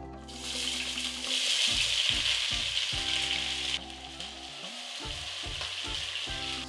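Sliced red onions sizzling as they hit hot oil in a nonstick pot and are stirred with a silicone spatula. The sizzle starts at once, is loudest over the first few seconds and drops to a softer frying about four seconds in.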